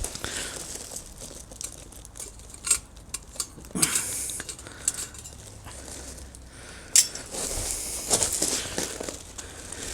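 Metal camp cookware being handled: clinks, knocks and scraping of pans and a stove, with a sharp metal clank about seven seconds in.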